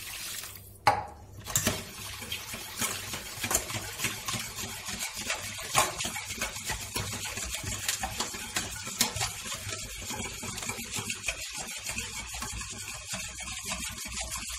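Water poured from a cup into a stainless steel bowl of sauce, a knock about a second in, then a wire whisk beating the thick tomato-paste sauce, its wires clicking rapidly against the steel bowl.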